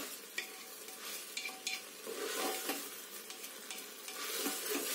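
A wooden spatula stirs and scrapes rice and whole moong dal around an aluminium pressure cooker, with short scraping knocks throughout. The grains sizzle as they roast in ghee.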